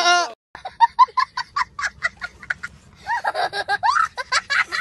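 A young child laughing hard. First comes a run of quick, short 'ha' bursts, then higher, gliding whoops of laughter from about three seconds in.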